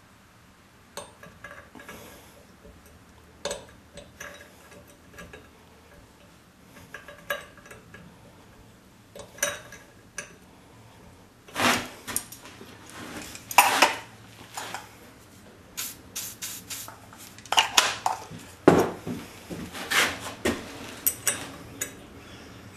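Light metallic clicks and clinks of a small wrench working a steel grease fitting into a tapped hole in an aluminium mower-deck spindle housing. Louder clinks and knocks from about halfway through.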